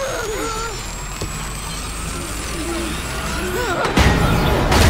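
Animated action sound effects: a steady low rumble of a snow vehicle under a slowly rising high whine, with short sliding, warbling tones, then a loud crash about four seconds in that builds again at the very end.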